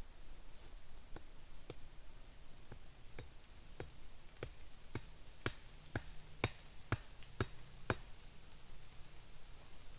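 Wooden stakes being tapped into the ground, a steady run of short knocks about two a second that grows louder and then stops near the end.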